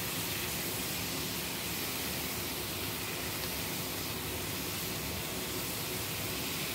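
Vegetables and mushrooms sizzling in a hot oiled frying pan as they are stir-fried: a steady, even hiss.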